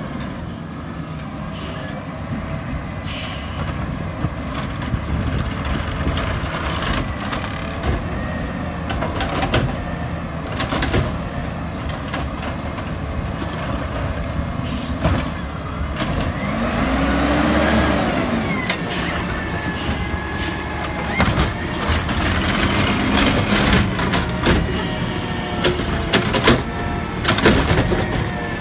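Natural-gas Peterbilt garbage truck with a McNeilus automated side-loader running as it pulls up and stops, with air-brake hisses. About two-thirds through, the engine revs up and back down once, then knocks and clanks come as the hydraulic arm grabs and lifts a cart near the end.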